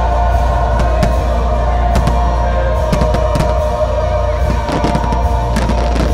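Fireworks display with its show soundtrack music playing loudly over it. Several sharp bangs of shells bursting are scattered through the music.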